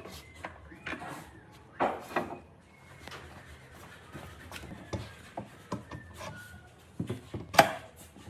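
Wood being handled and worked by hand: irregular knocks and scrapes of wooden pieces, with sharper knocks about two seconds in and again near the end.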